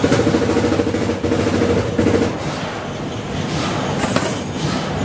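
Factory machinery running with a fast, steady, rattling pulse. A short hiss or metallic clash comes about four seconds in.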